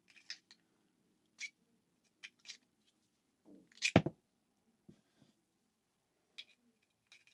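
Handling noise from a True Mycro utility knife and its sheath: scattered small clicks and ticks as the knife is worked in and out of the loose-fitting sheath, with one sharper knock about four seconds in.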